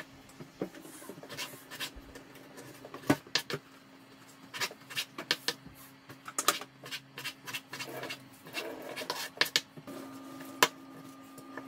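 Kitchen knife dicing raw chicken breast on a wooden cutting board: irregular sharp knocks as the blade meets the board, with a louder knock near the end.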